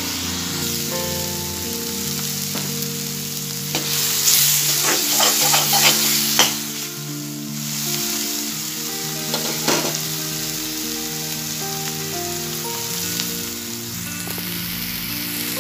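Ground onion-and-tomato masala paste sizzling in hot oil in a kadai, frying down until it dries and the oil separates. A spatula scrapes and stirs it several times between about 4 and 7 seconds in, and once more near 10 seconds. A soft background tune with held notes plays underneath.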